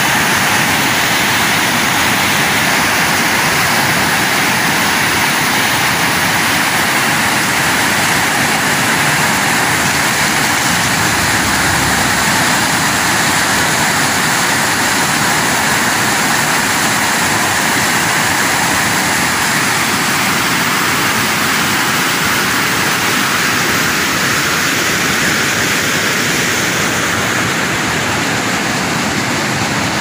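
River rapids rushing over rocks: a loud, steady, even roar of whitewater.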